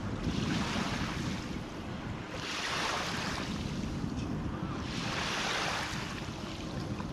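Wind rumbling on the microphone over water rushing along the hull of a boat under way, the hiss of the wash swelling and fading about every two and a half seconds.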